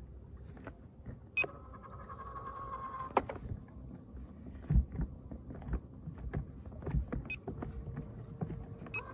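Haswing bow-mount trolling motor's electric steering motor whining as it turns the motor head: one steady whine of about two seconds starting just over a second in, and a fainter one near the end. Scattered low thumps in between.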